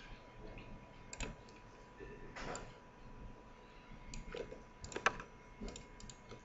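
Faint, scattered clicks of a computer mouse: single clicks about a second in and around four seconds, then a quick run of clicks about five seconds in.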